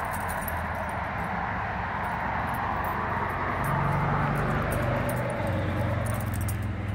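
Steady low hum of distant motor traffic with a hiss over it, swelling a little about halfway through.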